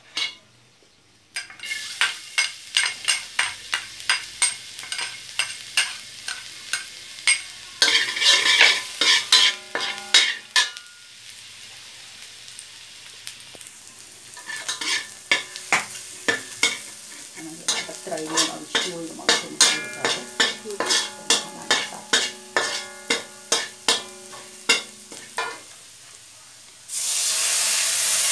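Metal spatula scraping and knocking against a large metal wok about twice a second over the light sizzle of chopped aromatics frying in oil, the wok ringing briefly after some strokes. Near the end, liquid poured from a bottle into the hot wok sets off a sudden loud, steady hiss.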